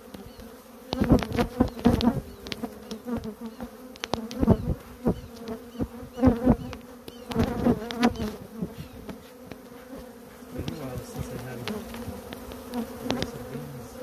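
A colony of Africanized honey bees buzzing in a steady, loud hum, stirred up and agitated ("not happy"). Repeated sharp thumps and crackles break in over the hum, in clusters about one to two seconds in and again around four and a half, six and eight seconds in.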